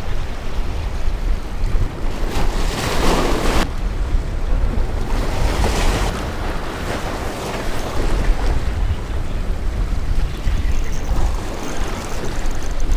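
Ocean surf washing and splashing against jetty rocks, with wind buffeting the microphone as a steady low rumble. Waves surge louder twice, about two seconds in and again around five to six seconds.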